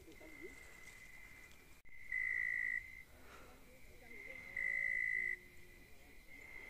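A wild animal's steady high-pitched call in the forest, swelling much louder twice for under a second each, a couple of seconds apart.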